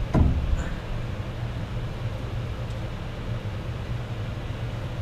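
A sharp metallic knock right at the start and a fainter click just after, from piston, rings and screwdriver being worked into the compressor's cylinder, over a steady low hum.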